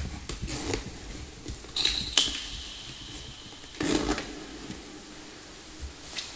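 Handling noises from a sculpture of small triangular panels on a wire frame: scattered light clicks and rustles, with a louder crinkling clink about two seconds in that rings on briefly, and another rustle about four seconds in.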